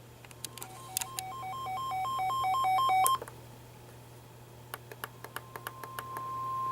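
Weather radio receiver alerting: a two-tone alarm beep alternating high and low about four times a second, growing louder for a few seconds and then cutting off. Then a run of clicks, and a steady tone near 1 kHz that swells near the end, matching the NOAA Weather Radio 1050 Hz warning tone that comes before a broadcast warning message.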